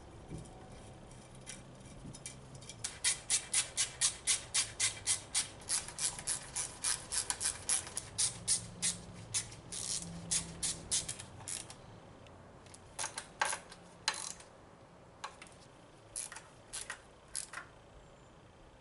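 Hand ratchet wrench clicking in a quick, even run of strokes, about three to four clicks a second, then a few scattered clicks later on.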